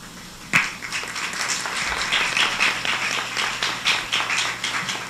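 Audience applauding, beginning about half a second in.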